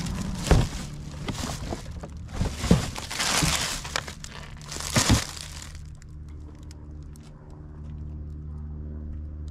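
Plastic wrapping crinkling and rustling around a boxed spin mop and bucket as it is handled, with three knocks along the way. After about six seconds the handling stops and a steady low hum remains.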